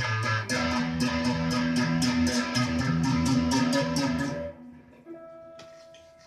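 Electric guitar played solo with quick, steady picking of chords, which stops abruptly about four seconds in. A faint ringing note and a few light ticks follow as it dies away.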